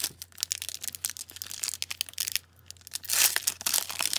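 The plastic film wrapper of an Upper Deck Victory hockey card pack being picked at and torn open by hand: continuous crinkling and crackling, loudest about three seconds in as the wrapper rips.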